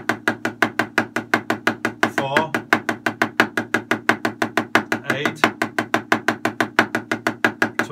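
Wooden drumsticks striking a drum practice pad in a fast, even stream of single strokes, about six a second, played as a speed exercise.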